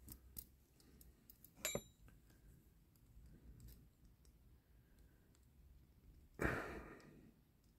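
Faint clicks of small diecast metal model parts being handled, with one sharper metallic click about two seconds in. Near the end a person sighs.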